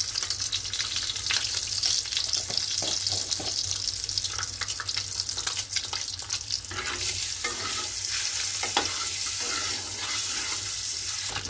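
Hot oil sizzling and crackling around two whole boiled eggs frying in a kadai, the sizzle growing brighter about seven seconds in. Near the end a spatula moves the eggs in the pan.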